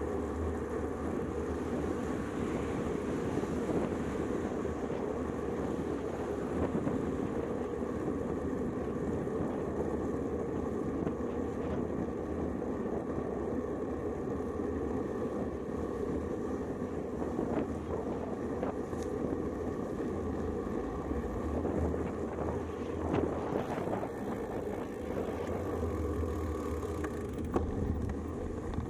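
Steady wind and tyre noise from a road bike riding on pavement, heard through a handlebar-mounted camera, with a short knock near the end.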